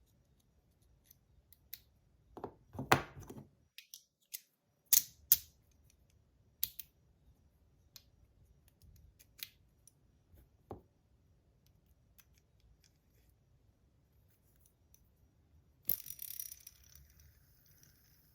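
Small metallic clicks and taps from a copper tank fidget being handled while a bearing is fitted back inside it, spaced irregularly. A short, high metallic rattle comes near the end.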